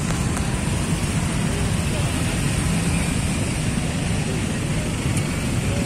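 Steady road traffic noise from a queue of cars and motorcycles creeping along, with faint voices mixed in.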